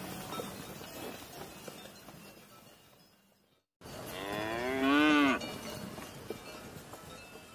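A cow mooing once, a single call under a second long that rises and then falls in pitch, about five seconds in. Before it, faint outdoor background fades out to a moment of silence.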